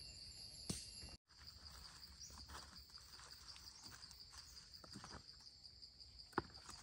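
Insects chirring steadily in one high tone, the audio cutting out briefly about a second in. A few faint clicks and rustles come from fallen seeds being picked up off the ground, the sharpest click near the end.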